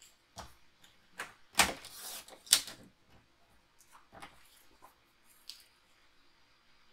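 Sliding-blade paper trimmer cutting a strip of designer paper: a few light clicks and taps, then a loud clack, a scraping cut of under a second, and another loud clack, followed by a few softer taps.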